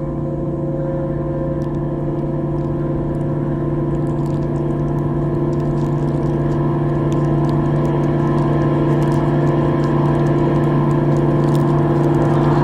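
Background music: a sustained ambient drone of a few held tones, slowly swelling louder as a build-up.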